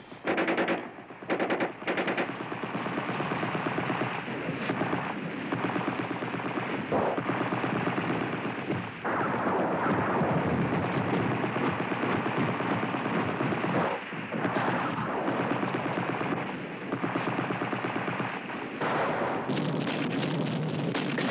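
Machine-gun fire in long, rapid bursts, broken by a few short pauses, the first two pauses coming in the first couple of seconds.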